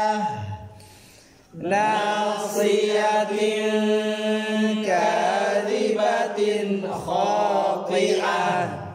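A man reciting the Quran in a slow melodic chant. After the previous phrase fades, the voice comes in about a second and a half in, holds long drawn-out notes, then moves into ornamented turns in the second half.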